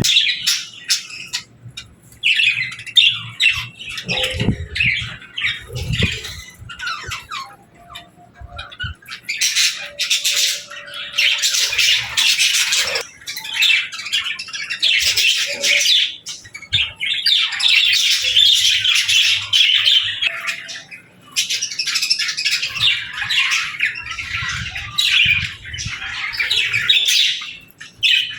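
Budgerigars chattering and chirping in a dense, fast warble, with a few short lulls.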